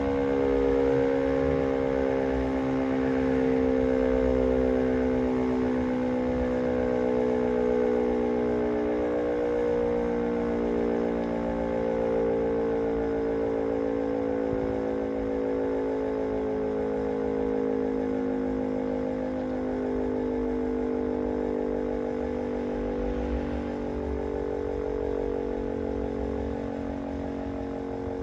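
Electric motor siren sounding the 6 p.m. time signal: a sustained low wail of several close tones that beat and waver against each other, slowly getting a little quieter toward the end.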